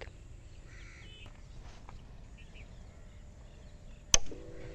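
Motorcycle ignition key switched on with a single sharp click about four seconds in, followed by a steady low hum as the bike powers up. Before that there is only faint outdoor background with a few faint bird chirps.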